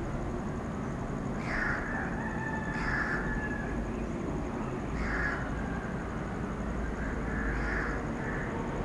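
A crow cawing, about four short calls a second or two apart, over the low steady rumble of an approaching train, which grows a little stronger about halfway through.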